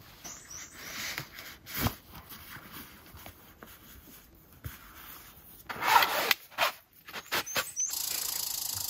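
Nylon camping gear rustling and rubbing as it is packed: bags and stuff sacks handled, with scattered clicks. The loudest rustling comes about six seconds in, and a steady raspy hiss starts near the end.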